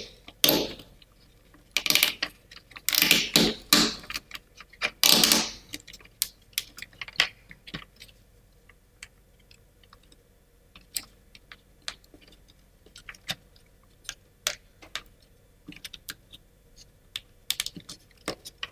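Laser-cut plywood parts of a Ugears wooden kit being pushed into the slots of the card holder's tiers. In the first six seconds there are several longer scraping, rubbing stretches as the pieces slide in, then scattered light wooden clicks and taps.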